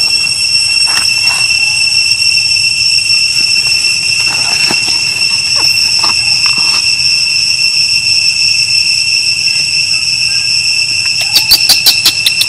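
Baby macaque giving a few faint squeaks while held and cuddled, over a steady high-pitched whine. A quick run of about ten sharp clicks comes near the end.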